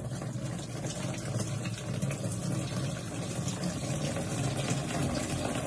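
Water pouring steadily from a plastic jug through the inlet into the plastic water tank of a 47-litre tower air cooler.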